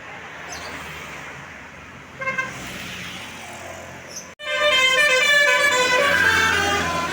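Tour bus's 'telolet' basuri musical horn. A short toot comes about two seconds in, then after a sudden break a loud run of quick notes stepping up and down in pitch plays a little tune over steady traffic noise.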